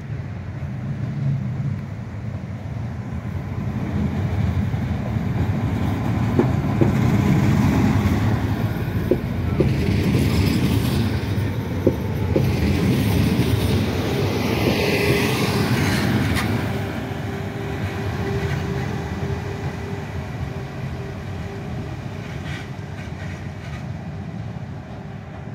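Newag Impuls electric multiple unit rolling slowly into the platform. It grows louder as it passes close by, with wheels clicking over rail joints. A steady whine rises in the second half as the train moves on down the platform and fades.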